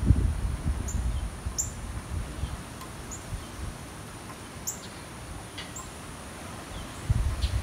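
Gusty wind buffeting the microphone, heaviest at the start and again near the end, with a steady wind hiss in between. Birds give short high chirps again and again over it.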